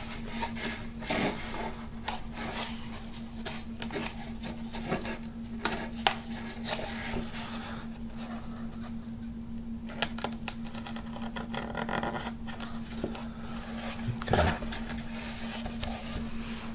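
Scattered rustles, taps and light knocks of hands working fabric covering and a foam sheet on a workbench over a balsa wing panel, with a steady low hum underneath and one louder knock near the end.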